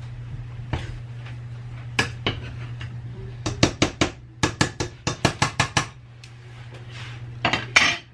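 A metal spoon knocks and scrapes against a stainless steel pot as drained boiled potatoes are stirred over the heat to dry them out. There is a quick run of knocks in the middle, all over a steady low hum.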